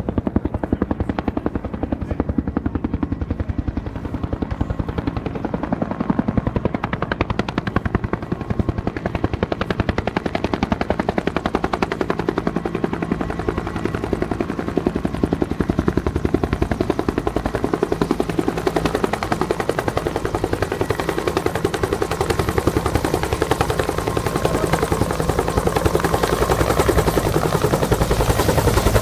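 Helicopter rotor and engine running steadily, the blades beating in a rapid even pulse, growing gradually louder over the last several seconds.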